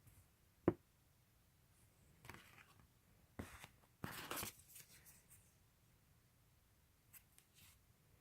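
Album packaging handled by hand: a sharp click a little under a second in, then rustling and scraping in short bouts around the middle, and a few faint rubs near the end.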